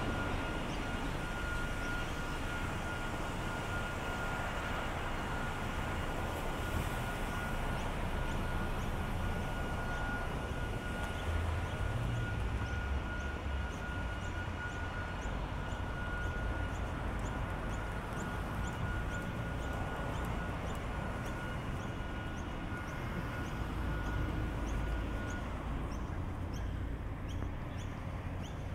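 Steady outdoor ambience dominated by the low rumble of vehicle traffic, with a thin steady high whine that stops near the end. From about eight seconds in, light ticks repeat about twice a second.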